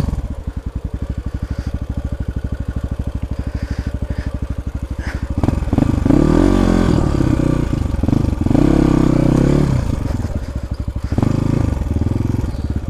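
Motorcycle engine idling with a steady chug, then revved up and down in two spells about halfway through and again near the end.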